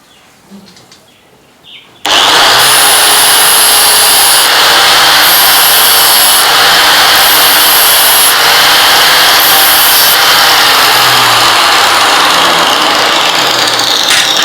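Electric grinder switching on about two seconds in and running steadily as it grinds metal, sharpening the edge of a spot-welder electrode.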